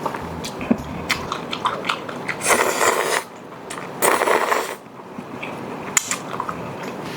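Close-up eating sounds from a bowl of spicy ramen with soft tofu: two short slurps, about two and a half and four seconds in, amid chewing and small clicks.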